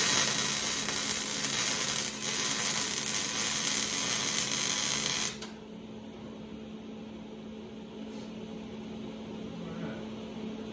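Welder tacking a steel transmission crossmember: a loud, steady crackling hiss that lasts about five seconds, breaks briefly about two seconds in, then stops suddenly. A low steady hum runs underneath.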